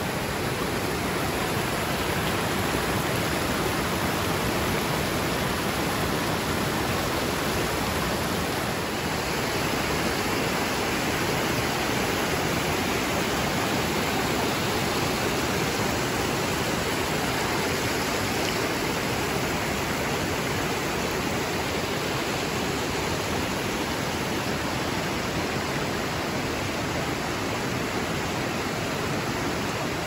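Shallow stream water rushing and splashing over small mossy cascades: a steady, even rush of water.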